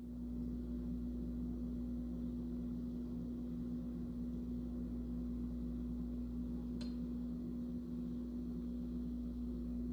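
Steady electric motor hum with a low rumble underneath, such as a kitchen appliance running, and one light click about seven seconds in.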